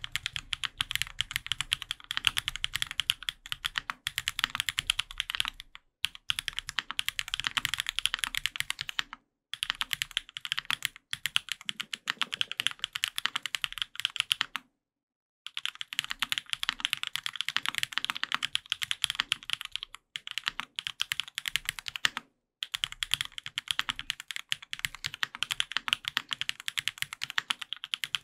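Fast typing on a Sangeo 65 custom mechanical keyboard with lubed Durock POM switches (Krytox 205g0), an aluminium plate and GMK keycaps: a dense run of keystroke clacks. The clacks are broken by a few short pauses, the longest about halfway through.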